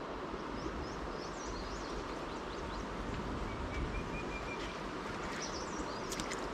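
Shallow river running over a stony bed, a steady rush of water, with birds chirping now and then and a few sharp ticks near the end.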